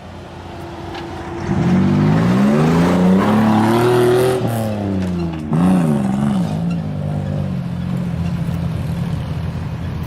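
Off-road vehicle's engine revving as it pulls away. The pitch climbs for a couple of seconds, then drops, rises briefly once more, and settles into steady running at lower revs.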